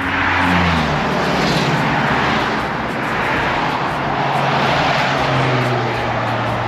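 Highway traffic passing close by: a steady rush of tyres and engines that swells and fades as vehicles go past, with a low engine hum that drops in pitch near the start and then holds.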